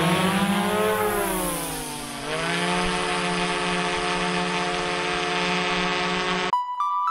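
DJI Mavic Pro Platinum quadcopter's motors and propellers whirring with several steady tones, rising in pitch at first, dipping about two seconds in, then holding steady. It cuts off abruptly near the end, where music begins.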